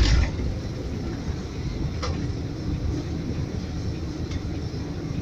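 Steady low rumble of a bus's engine and tyres heard from inside the cabin while it drives, with a faint tick about two seconds in.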